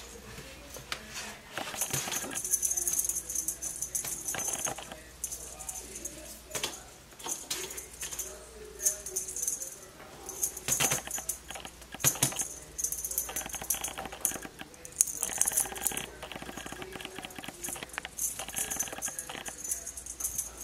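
Light jingling and rattling from a feather wand cat toy being swished about, coming in irregular spells of a second or two.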